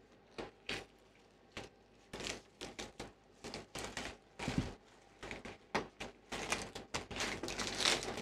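Protective plastic film on a TV screen and bezel being picked at and peeled by hand: a run of irregular crackles and ticks, sparse at first and growing busier in the last few seconds.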